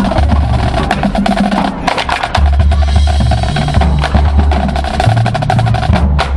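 Marching band drumline playing a loud percussion feature: fast snare drum strokes and rolls over low, sustained drum notes.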